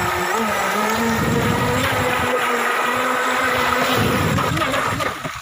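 Volantex Atomic (V792-4) RC tunnel-hull boat running at speed: a steady brushless-motor whine over the hiss of spray off the hull. It drops off about five seconds in.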